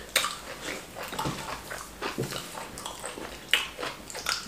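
Close-miked eating of wheat fufu and ogbono soup: irregular wet mouth smacks and chewing sounds, a few short sharp ones standing out.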